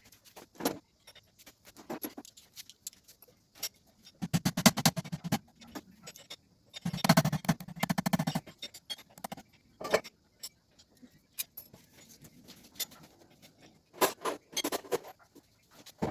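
Metal tools and transmission parts clinking and clicking as they are handled, with two short runs of rapid clicking, one about four seconds in and a longer one about seven seconds in.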